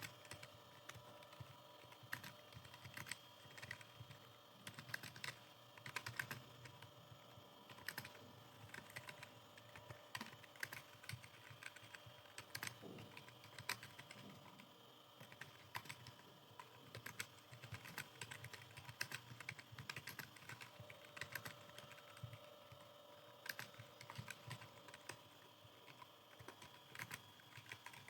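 Computer keyboard being typed on continuously: quiet, quick, irregular key clicks, several a second with brief pauses.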